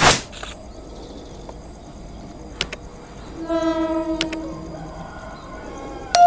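A diesel locomotive horn sounds briefly about three and a half seconds in, over a short loud rush of noise at the start and a few clicks. Just before the end a loud, bright two-tone ringing begins.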